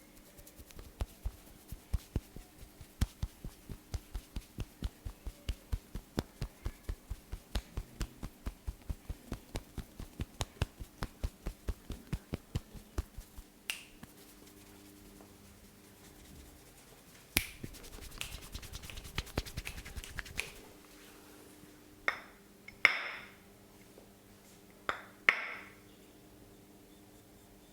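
Sharp hand strikes of a head massage, repeated evenly at about four a second for some twelve seconds. A brief scratchy flurry follows, then a few louder single cracks near the end.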